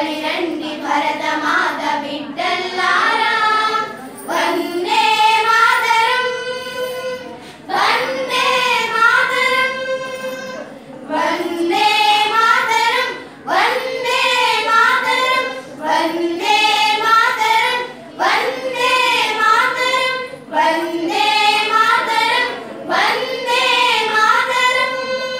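A group of schoolgirls singing a Telugu patriotic song together, in phrases of a second or two with held notes and short breaths between.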